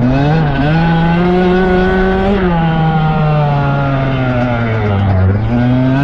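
Dirt bike engine running under throttle while riding. Its pitch climbs near the start, holds, drops sharply a little over two seconds in, sags slowly, then rises again near the end.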